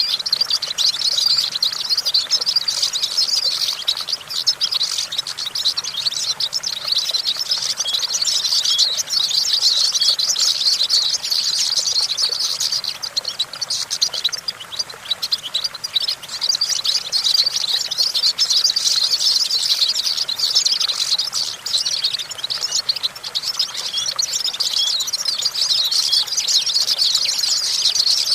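European goldfinch singing: a long, fast, unbroken run of high twittering and tinkling notes, easing briefly twice before running on.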